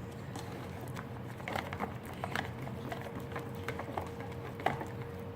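Fluffy slime of shaving cream and peel-off mask being stirred as contact solution is worked in, giving small sticky clicks and crackles from about a second and a half in to near the end, over a steady faint hum.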